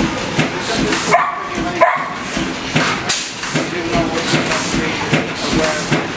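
Large twin-cylinder stationary engine running at an even, slow beat of about two to three strokes a second. About a second in, a brief high, wavering sound rises above the beat.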